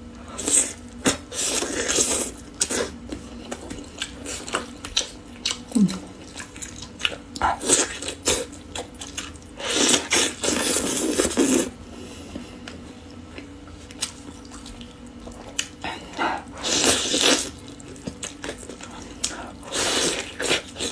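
Close-miked eating of a braised duck leg in thick sauce: wet biting, chewing, lip smacking and sucking meat off the bone, with many sharp mouth clicks. Longer wet smacking stretches come about ten seconds in and again around seventeen seconds.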